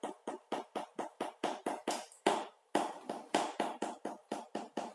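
Sugar being shaken out of a cardboard carton into a stainless steel frying pan: quick, even shakes of the box, about five or six a second, with a short pause about halfway through.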